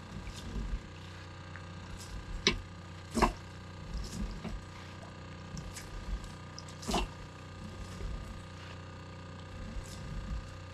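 A few sharp wooden-sounding knocks and clacks, spaced irregularly, as a collapsible net fish trap is hauled hand over hand over the side of a fishing boat, over a steady low hum.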